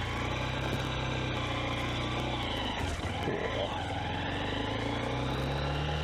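2023 Honda CB125F's single-cylinder four-stroke engine running as the bike is ridden, with wind and road noise, heard through a microphone under the rider's jacket collar. The note breaks briefly about halfway through, then rises steadily near the end as the bike pulls.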